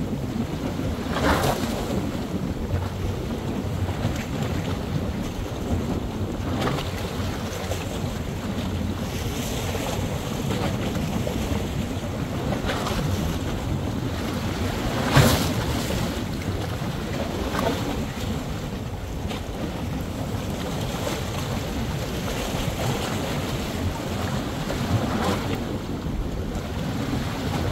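Wind buffeting the microphone over a steady wash of water, with a few brief louder swells, the strongest about halfway through.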